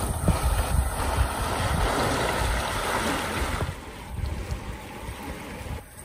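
Fast-flowing muddy river water rushing steadily, with wind buffeting the microphone. About three and a half seconds in, the sound drops to a quieter, fainter hiss.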